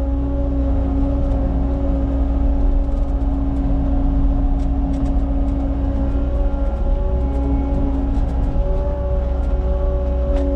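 Cat 279 skid steer's diesel engine running steadily under work, with a constant low rumble and a steady whine that briefly breaks off a little past halfway.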